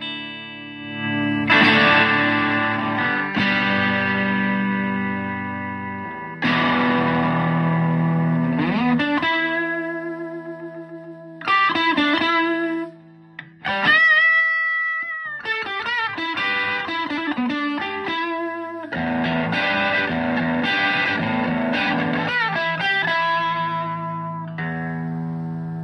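Stratocaster electric guitar played through a Rangemaster-style treble booster into a Fender Twin-style amp: strummed chords left to ring, then picked single-note lines, with one held note bent and shaken with vibrato around the middle, and more chords after.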